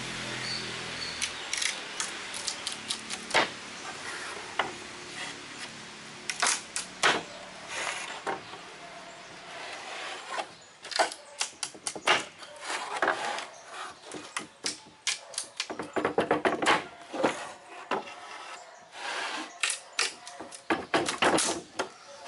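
Weathered wooden pallet slats knocking, clicking and clattering against the pallet frame as they are pried and worked loose by hand. The sharp wooden knocks come irregularly at first and grow into dense rattling clusters about halfway through.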